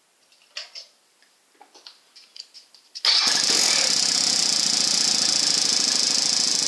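A few light clicks, then about three seconds in the Suzuki DR650's single-cylinder engine starts at once and runs with a loud, steady mechanical rattle from the left (stator) cover. The noise follows a stator and pulse coil replacement, and the owner suspects something left loose inside, such as a missing washer.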